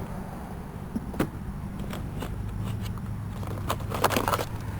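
A few sharp clicks and metallic clinks of hand tools being handled, one about a second in and several close together near the end, over a steady low engine hum.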